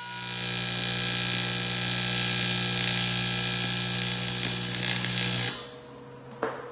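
AC TIG welding arc on aluminum: a steady, loud buzz with a hiss that cuts off sharply about five and a half seconds in when the arc is shut off. A single short click follows near the end.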